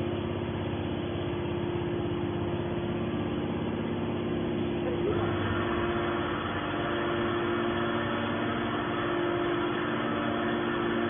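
Hydraulic metal baler's power unit running with a steady hum; about five seconds in the sound changes, adding a higher-pitched whine over the hum.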